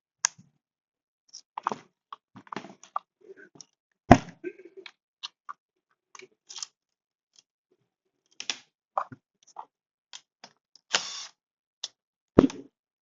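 Scattered clicks, knocks and rattles of a chainsaw being handled and examined, with a sharp knock about four seconds in, a short rasp around eleven seconds and another sharp knock near the end.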